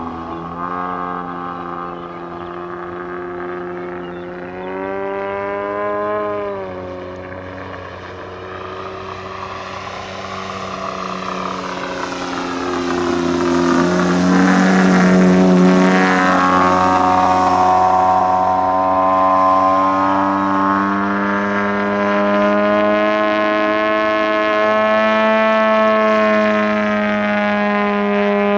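Engine and propeller of a 123-inch AJ Laser radio-controlled aerobatic plane flying overhead, the pitch rising and falling with throttle through its manoeuvres. It is loudest as it passes close about halfway through, and the engine note drops sharply at the end as it is throttled back.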